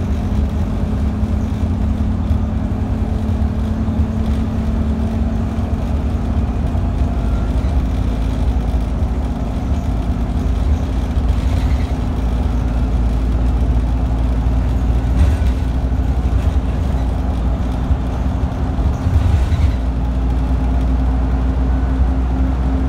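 Interior of a Scania double-decker bus on the move: the engine runs at a steady speed under a constant low rumble of road and tyre noise.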